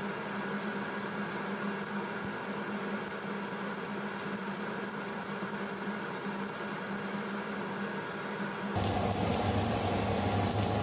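Pork chops grilling on an indoor grill with a light sizzle under a steady motor hum like a kitchen fan. Near the end the sound changes abruptly to a louder, deeper hum.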